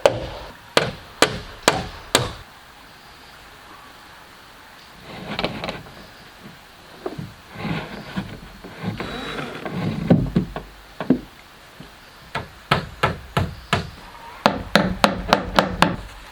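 Repeated sharp blows of a tool on wood, about two to three a second, in two runs, with scraping and handling noise of wood in the pause between them.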